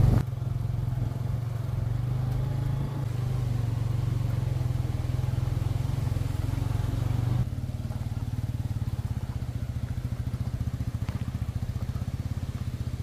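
Motorcycle engine running with a steady low drone. About seven seconds in it drops to a quieter, evenly pulsing idle.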